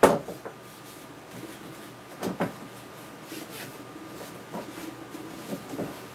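Knocks and clunks of a small mini vise being handled and set down: a sharp knock at the start, a double knock about two seconds in, and lighter rattles and taps between.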